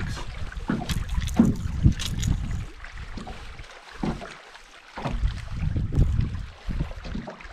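Wind buffeting the microphone in gusts, with scattered sharp clicks and light knocks of handling as a crankbait hook is worked out of a bass's mouth. The wind drops away briefly a little past the middle.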